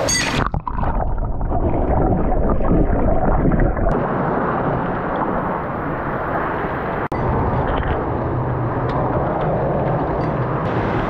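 Steady rushing of water in a cave, loud and close to the microphone. The sound drops out briefly twice, about half a second in and about seven seconds in.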